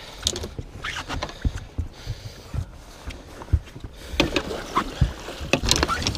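Knocks and thumps on the deck of a fishing boat, scattered every second or so, with a busier stretch of rustling, splashing and handling noise in the last two seconds as a man works at a landing net holding a musky.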